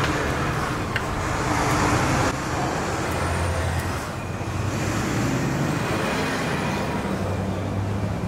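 Steady background road traffic noise with a low hum, and a light knock about a second in as the plastic thermo-fan assembly is set down into the engine bay.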